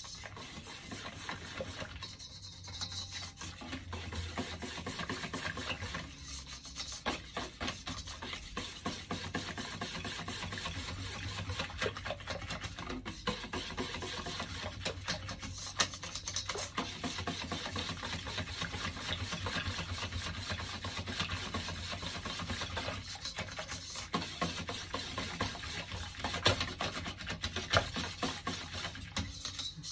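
Wire whisk beating a thin flour-and-tapioca kutsinta batter in a bowl: rapid, continuous scraping strokes with a few short pauses, as the batter is worked smooth and free of lumps.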